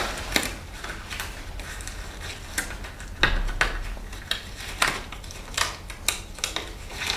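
Disposable gloves being pulled on and worked over the hands, with the rustle of a disposable PPE coverall's sleeves: an irregular string of short snaps and rustles.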